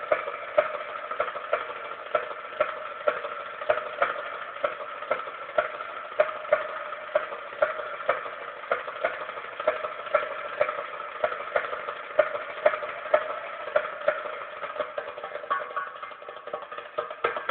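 Dance music with a steady percussion beat, about two strokes a second, over a sustained droning melody.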